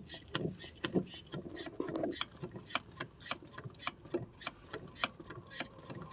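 Accelerator pedal and linkage of a 1985 Chevrolet Suburban being pumped by foot, a quick run of creaks and clicks, about three to four a second, with some dull knocks. The gas is being pumped to prime the Quadrajet carburetor before a hard start.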